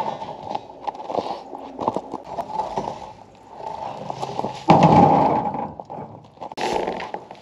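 Footsteps crunching and scuffing through snow in uneven steps, with louder crunches about five seconds in and again near the end.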